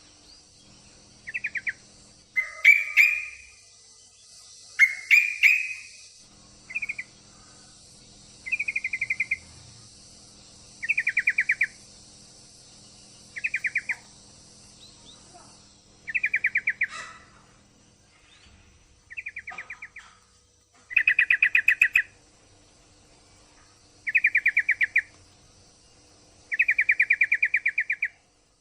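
Yellow-vented bulbul (trucuk) giving about a dozen short, rattling trilled calls, each under a second, spaced every two to three seconds. These are the calls of a female in breeding condition calling to a male.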